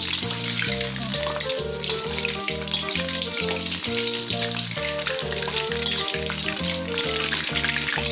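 Tahu aci (tofu stuffed with tapioca batter) sizzling and crackling as it fries in hot oil, a steady frying sound over background music with a regular beat.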